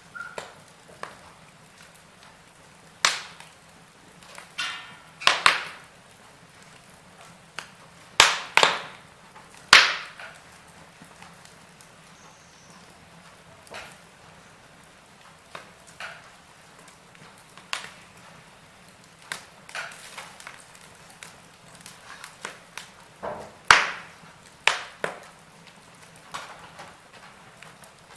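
Wood fire burning in a fireplace, crackling with irregular sharp snaps and pops over a faint steady hiss. The loudest pops come about three seconds in, twice around eight to ten seconds, and again near twenty-four seconds.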